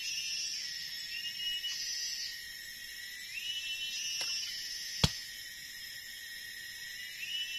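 Forest insects droning steadily at a high pitch, the tone rising, holding and falling back every couple of seconds. A single sharp snap about five seconds in.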